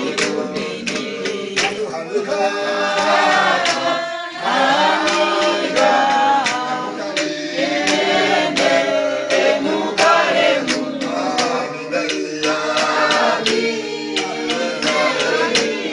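A choir of several voices singing together a capella in harmony, with a steady beat of sharp strikes keeping time under the singing.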